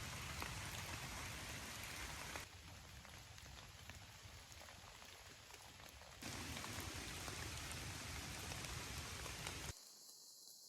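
Steady rain falling on the woods, a fine patter of drops over a low rush. The sound jumps abruptly louder and quieter about two and a half, six and nine and a half seconds in, where clips are cut together.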